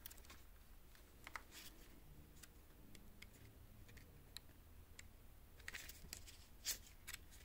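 Near silence with a few faint, scattered clicks and light rustles of tarot cards being handled.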